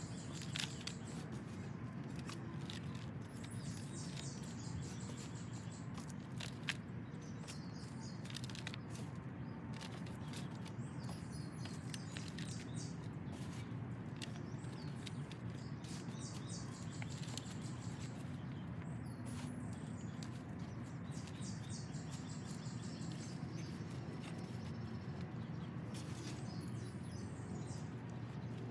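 Birds chirping repeatedly over a steady background of outdoor noise, with scattered small clicks and knocks.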